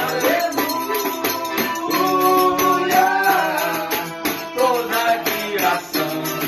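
Worship band music: shaker-like hand percussion keeps an even beat under a melody line that glides and holds notes.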